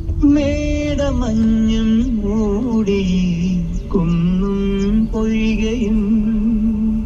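A Malayalam song playing on the Mahindra BE.6's stock car audio system: a singer holding long, wavering notes over steady backing, with a low hum underneath.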